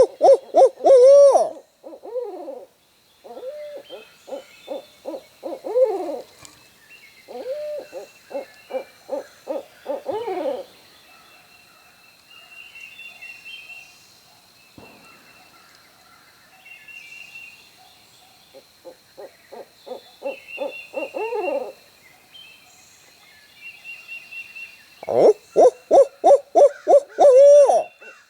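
Owl hooting in several runs of quick, gliding, downward hoots. The runs are loud in the first seconds and again near the end, with softer runs in between.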